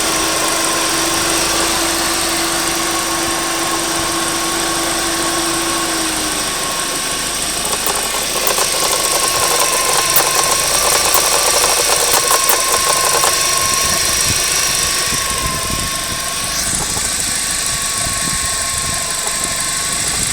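Volkswagen Jetta 1.8T turbocharged four-cylinder engine running at idle with a steady whine over it. Midway, a run of rapid ticking lasts several seconds. This is the strange noise the owner is asking about, and its cause is not known.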